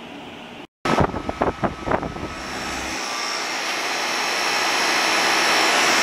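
Sanyo split-system outdoor condensing unit running, its fan giving a steady rush of air that grows gradually louder, after a few knocks and clicks about a second in.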